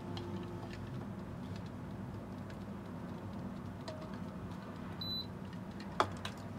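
A spoon stirring flour in a glass bowl as cold water is poured in: faint scraping and small ticks, with one sharp click near the end.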